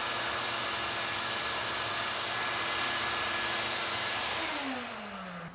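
An electric motor runs at a steady speed with a hiss and a steady whine. About four seconds in it is switched off and winds down, its pitch falling.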